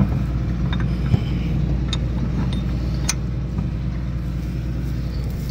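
John Deere 8640 tractor's diesel engine running steadily under load, pulling a seven-bottom plow without straining. A few sharp clicks cut through the drone about one, two and three seconds in.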